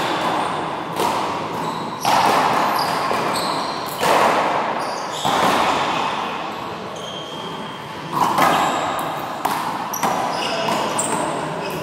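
A rubber handball smacked by hand and slapping off the front wall in a rally: sharp hits a second or two apart, each ringing out in the large hall, with short high squeaks of sneakers on the court floor in between.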